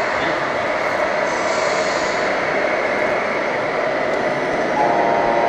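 Radio-controlled model trucks running: a steady mechanical rumble, with a brief tone about five seconds in.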